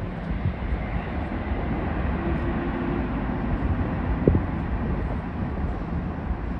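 Distant jet airliner on approach, a steady low rumble that grows slightly louder, with a sharp click about four seconds in.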